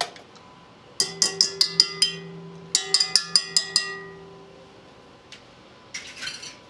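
Wire whisk knocked against the rim of a stainless-steel mixing bowl in two quick runs of about six taps each, to shake whipped egg whites off the whisk. The bowl rings on after each run. A short scrape follows near the end.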